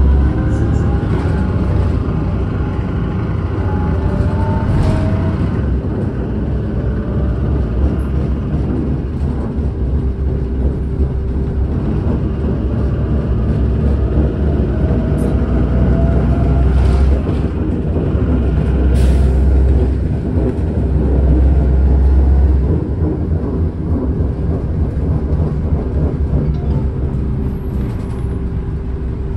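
Cabin noise of a city bus on the move: a steady low rumble of road and drivetrain, with a faint whine that rises in pitch a couple of times as the bus picks up speed. A short hiss comes about two-thirds of the way through.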